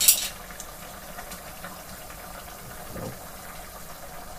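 Rice and peas boiling hard in water in an aluminium pot, a steady bubbling hiss. A short metal clatter right at the start, as the stirring spoon knocks against the pot.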